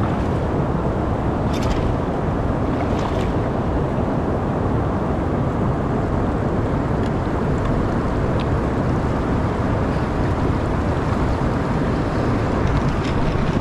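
Steady rushing noise of river water, with wind buffeting the microphone and a few faint ticks.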